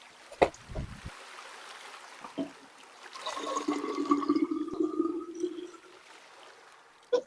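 Water running for about three seconds, after a couple of knocks near the start.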